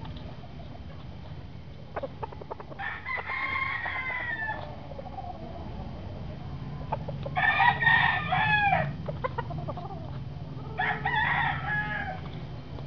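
Rooster crowing three times, each crow under two seconds long and a few seconds apart.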